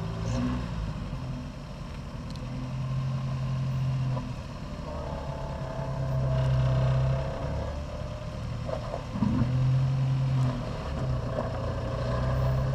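Off-road rock crawler's engine working the throttle in several bursts, revving up and easing off as the vehicle climbs a rock obstacle.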